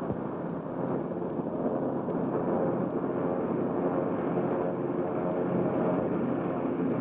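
Propeller airplane engines droning as the plane flies low overhead, growing louder over the first second or two, then steady.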